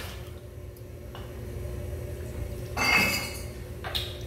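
Glassware clinking as a whiskey bottle and a rocks glass are flipped and handled in a bartending flair move: a soft knock about a second in, a louder ringing glass clink near three seconds, and a short sharp tap near the end, over a steady low hum.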